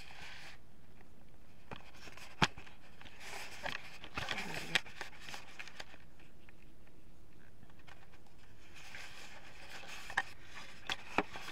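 Rustling and crunching in two stretches, footsteps through dry leaf litter, with a few sharp clicks and knocks from handling the handheld camera; the loudest is a single click about two and a half seconds in.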